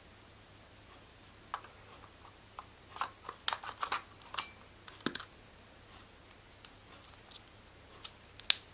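Sharp plastic clicks and taps from hands handling small camera parts such as the battery, battery door and charger. They come as a single click early, a quick cluster a few seconds in, and one loud click near the end.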